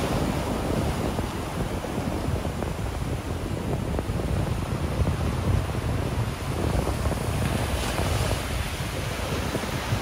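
Ocean surf: small waves breaking close in and foam washing up the sand, with a brighter hiss of a breaking wave about eight seconds in. Wind rumbles on the microphone underneath.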